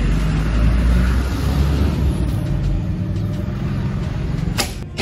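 Steady low rumble, then about four and a half seconds in a single sharp snap: the bowstring of a 40 lb Okcubaba laminated Turkish bow loosing an arrow.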